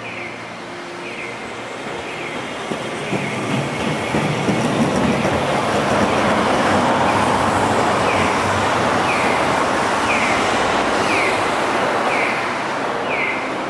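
A low-floor articulated electric tram runs past on street track. Its rumble and wheel noise build over the first several seconds, are loudest in the middle and ease toward the end. A short falling electronic chirp repeats about once a second throughout.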